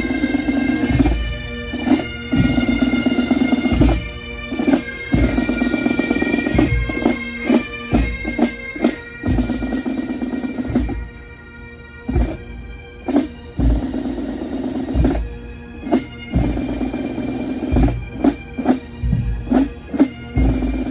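Bagpipes playing a tune over their steady drone, the sound repeatedly broken by brief dropouts and low thumps.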